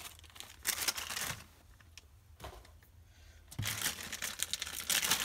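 Rustling of foam packing peanuts in a cardboard box, then, after a quieter stretch, a small plastic zip-lock bag crinkling as it is handled and pulled open, from about three and a half seconds in.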